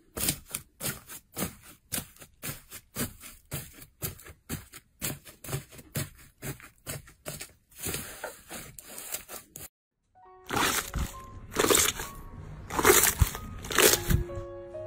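Hands squeezing and pressing foam slime studded with foam beads: a quick run of crisp crackles and crunches, about two or three a second. After a short break about two-thirds of the way through, thick green slime is pressed in heavier squelching bursts over light background music.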